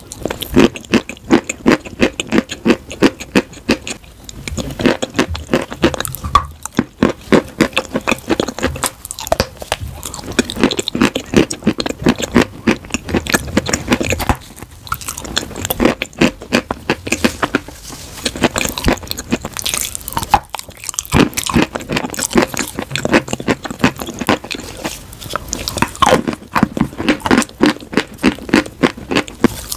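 Close-miked chewing of pieces of chalk and clay coated in a creamy paste. A fast run of crisp crunches is broken by short pauses between bites.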